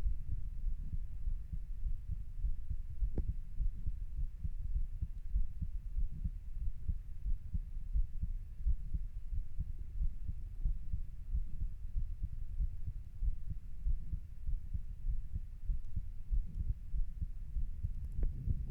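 A person's heartbeat, the low thumps of their usual resting heart sounds while lying down.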